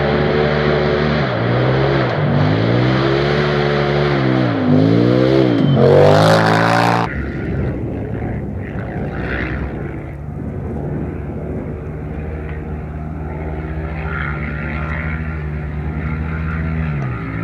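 Polaris RZR Pro XP side-by-side racing close by, its engine revving up and down through repeated gear changes and throttle lifts. About seven seconds in the sound changes abruptly to the engine heard from far off, running steadily as it drives up a dusty track, with a dip and rise in revs near the end.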